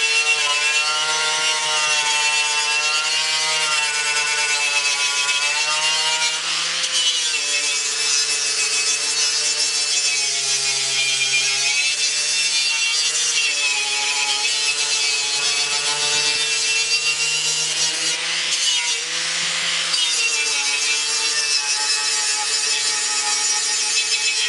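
Electric angle grinder with a wire wheel brush scrubbing the painted metal grille of a 1953 Ford F100 pickup, stripping paint and rust to bare metal. A steady motor whine whose pitch wavers and dips as the brush is pressed on, over a scratchy hiss of wire on metal.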